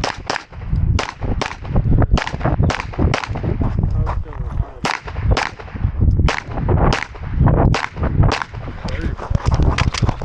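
Rapid 9mm pistol fire from a Glock 34 shooting a USPSA stage: loud sharp shots coming in quick, irregular strings of about two or three a second, with brief pauses between groups.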